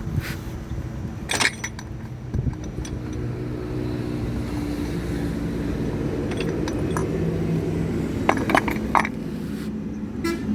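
Scattered metallic clinks and knocks of tools and metal parts as a Honda Activa scooter's gearbox is worked loose and pulled out, over a steady low hum of traffic.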